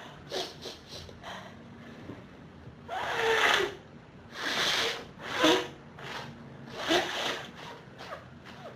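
A person's nose and breath sounds during an allergy sneezing fit: a run of short, noisy sniffs, breaths and sneezes a second or so apart, the loudest a few seconds in.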